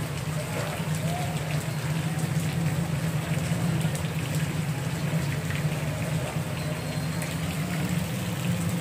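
Rain falling on a wet street: an even hiss of fine drop patter, over a steady low hum.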